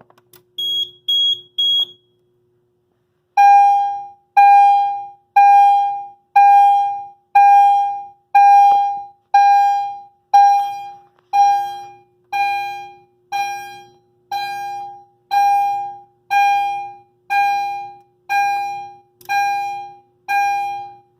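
Fire alarm notification appliance on the panel's NAC circuit sounding its chime: a single decaying tone struck about once a second, the signal for a supervisory condition activated from the panel. Three short high beeps come about a second in, before the chime starts.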